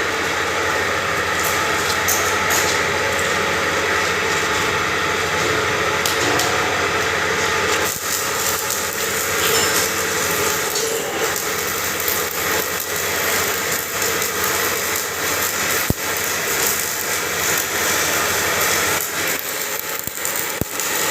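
Hammer-mill pulverizer grinding machine running steadily with a dense mechanical noise. The sound shifts about eight seconds in, and a single sharp click comes about three-quarters of the way through.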